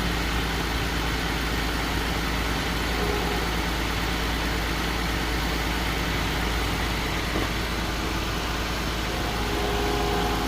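The 3.6-litre V6 of a 2023 Ram 1500 idling steadily, freshly filled with new oil and running to circulate it before the level check; it sounds normal.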